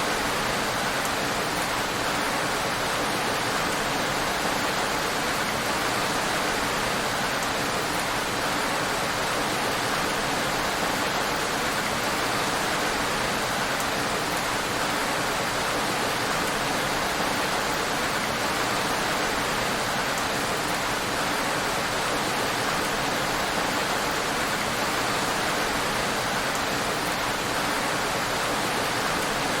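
Heavy rain falling steadily in an even, unbroken hiss, with no separate drops standing out.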